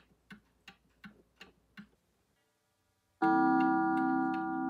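Seth Thomas mantel clock ticking at a quick, even beat, about three ticks a second. After a brief gap, its coiled wire gong is struck once, a bit over three seconds in, and rings on with a rich, slowly fading tone, the ticking still going over it.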